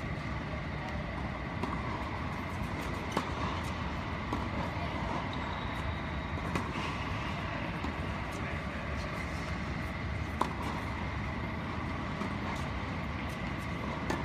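Tennis ball struck by a racket and bouncing on an indoor hard court: several sharp pops a few seconds apart, over a steady background drone.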